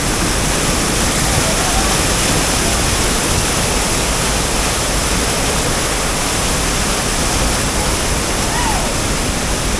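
Steady, loud rush of a waterfall: water pouring over the falls and crashing into the pool below, drowning out nearly everything else.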